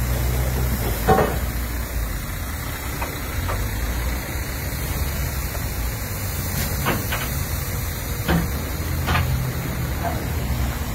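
Lorry diesel engine idling with a steady low rumble, with a handful of sharp metal knocks and clanks over it, the loudest about a second in.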